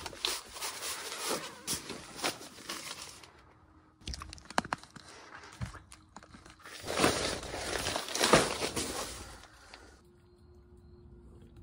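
Rustling and crinkling of a sleeping pad being unpacked from its box and stuff sack and unrolled on a plastic tarp, in irregular bursts with a few sharp clicks about halfway. The loudest handling comes a few seconds before the end, then it goes quiet under a faint steady hum.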